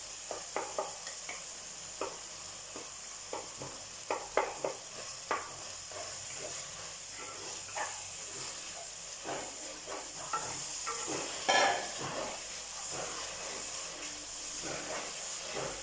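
Onion and tomato masala sizzling in oil in a clay pot while a wooden spatula stirs it, with irregular scrapes and taps against the pot's sides. One louder scrape comes about eleven seconds in.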